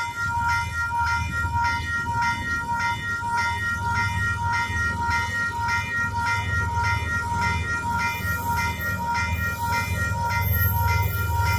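Level crossing bells ringing in a rapid, even repeating pattern, two Western-Cullen-Hayes bells warning of an approaching train. Under them a diesel freight locomotive rumbles as it nears, growing louder near the end.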